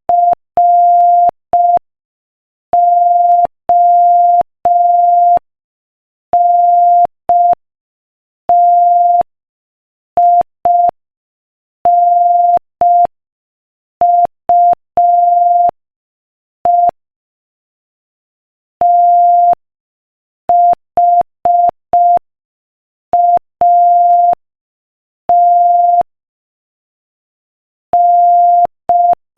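Morse code practice tone: a single steady electronic beep keyed in short and long pulses (dits and dahs) at about 5 words per minute, with longer silent pauses between letters and words.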